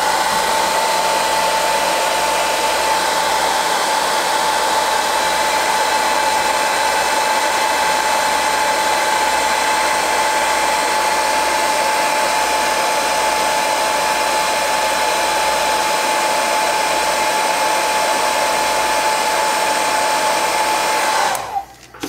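Heat gun blowing steadily, a rushing airflow with a steady fan whine, as it shrinks heat-shrink tubing over the soldered joints of an XT60 battery connector. Near the end it is switched off and winds down, its whine falling in pitch.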